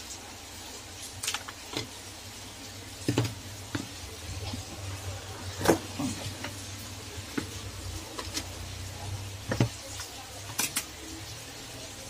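Scattered sharp plastic clicks and taps from handling a keypad mobile phone, as its back cover is snapped off and the phone and cover are set down on a rubber work mat, over a low steady hum.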